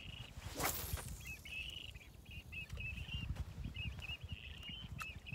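A spinning fishing rod swishing through a cast, a quick whoosh about half a second in that falls in pitch. Birds chirp in short, repeated calls throughout over a low rumble, with one sharp click near the end.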